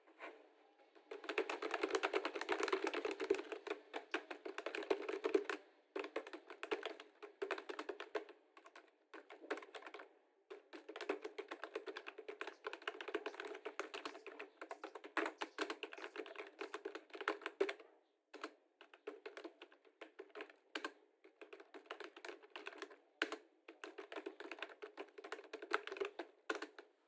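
Fast typing on a computer keyboard, dense runs of key clicks broken by short pauses.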